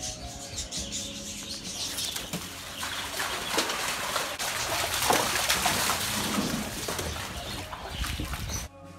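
Rottweilers splashing and sloshing as they run through shallow standing rainwater: an irregular wet splashing that builds and is busiest around the middle. It stops abruptly just before the end, where music comes in.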